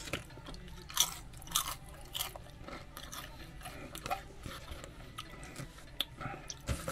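A man chewing a barbecue chicken sandwich close to the microphone, with irregular sharp clicks from his mouth.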